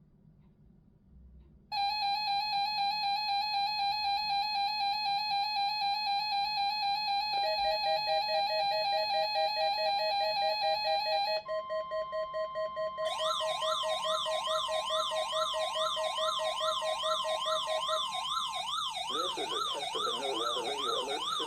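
Emergency alert tones: loud, steady electronic tones that start suddenly about two seconds in and step to new pitches twice, then give way to a siren-like tone sweeping up and down about twice a second, joined near the end by a second, lower warbling tone.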